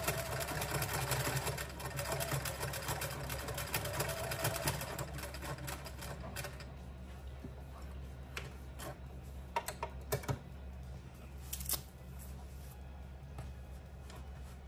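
Electric sewing machine stitching through thick latch-hook canvas, running for about the first six seconds and then stopping. After that come a few light, separate clicks as the work is handled.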